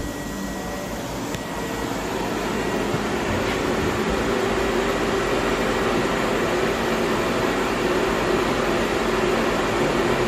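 Steady mechanical hum and fan-like noise of running machinery, growing a little louder over the first few seconds. A faint high whine stops after about a second and a half, with a small click.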